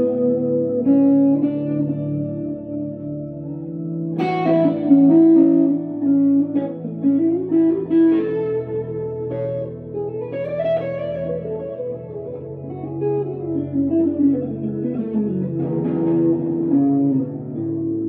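Electric guitar, a 1965 Fender Stratocaster played through a Glaswerks Zingaro 100-watt amp and a Celestion G12/65 speaker, playing a slow melodic passage of sustained notes and sliding runs. A loud struck chord comes about four seconds in.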